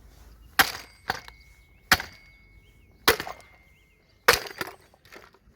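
Hammer blows on the body of a Poulan Pro chainsaw: about six sharp strikes a second or so apart, four hard and two lighter. The blows are cracking the saw's fuel tank.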